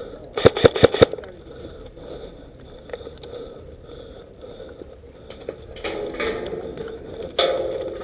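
Airsoft rifle firing four quick shots close by, about half a second to a second in. A louder rustling, scraping noise takes over in the last couple of seconds.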